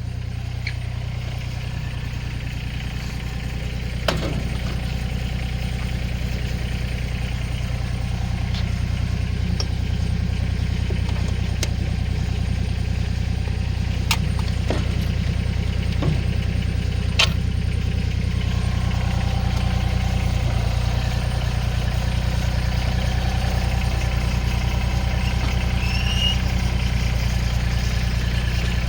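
Massey Ferguson GC2400 subcompact tractor's three-cylinder diesel idling steadily, with a few sharp clicks and knocks during the hitching.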